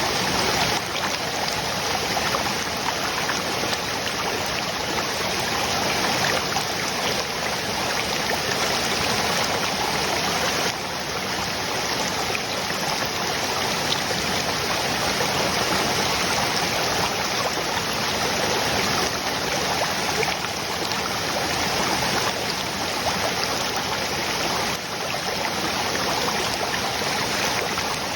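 Saladai waterfall pouring steadily, a dense, unbroken rush of falling water.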